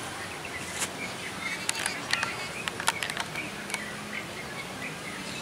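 Outdoor background noise with a scattering of sharp clicks and taps, mostly between about one and four seconds in, and a few faint high chirps.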